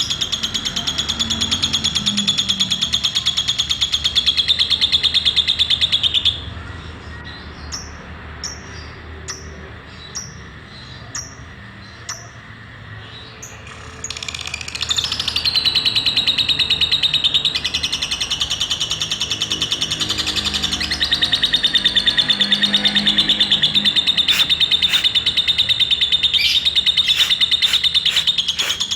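Lovebird ngekek: long runs of rapid, high-pitched chattering trill. The chatter breaks off about six seconds in, giving way to a string of separate short chirps, then resumes for the second half.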